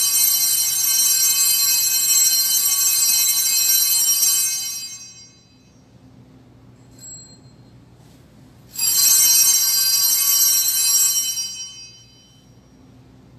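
Altar bells rung at the elevation of the chalice during the consecration: a bright, high jingling ring that lasts about four seconds and fades. A single light ting comes about seven seconds in, then a second, shorter peal about nine seconds in that also fades away.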